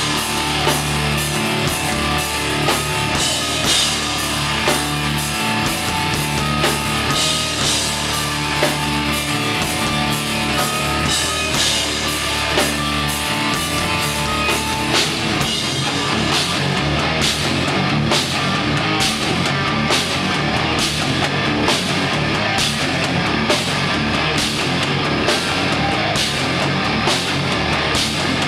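Live rock band playing loud, heavy rock on electric guitar and drum kit, with a steady, driving drum beat.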